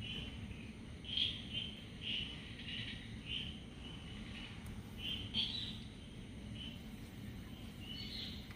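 Small birds chirping in short repeated calls, about two a second, over a low steady hum.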